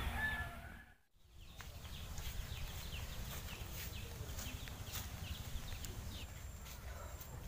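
Faint birds chirping, many short downward chirps, over a steady low rumble of outdoor background noise, starting after a brief silence about a second in.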